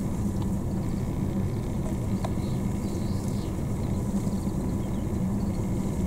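Steady low rumble throughout, with faint chirping calls from a small flock of bramblings, mostly around the middle.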